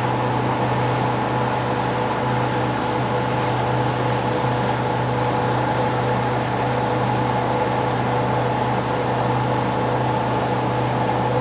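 Boat engine running steadily at a constant speed, a level drone over a continuous rush of noise.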